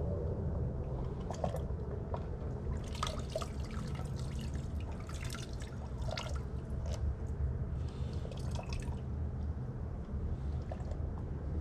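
Water dripping and splashing in a pool's auto-fill valve well as hands and a tool work in it, in a few irregular bursts over a steady low rumble.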